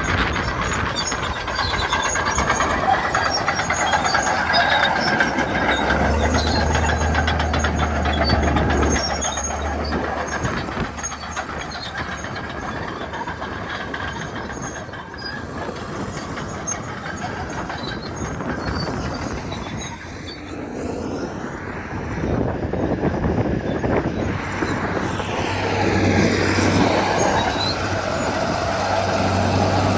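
Komatsu D61EX crawler bulldozers working, their diesel engines running loud with the engine note shifting up and down as the load changes. The sound dips about two-thirds of the way through, then swells again.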